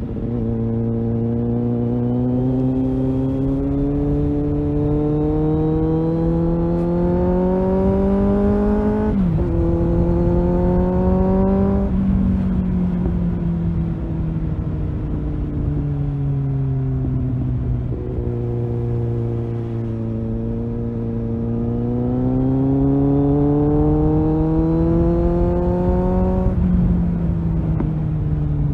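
Kawasaki Z800 inline-four engine with a Tiger aftermarket exhaust pulling steadily under light throttle, its pitch climbing slowly and dropping sharply at a gear change about nine seconds in. The engine then winds down on a closed throttle for several seconds before climbing again and dropping once more near the end, over wind and road rumble.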